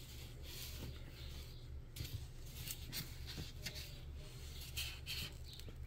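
Soft rustling and scratchy rubbing of a fleece blanket as a newborn puppy squirms on it and a hand strokes it, in many short irregular scrapes.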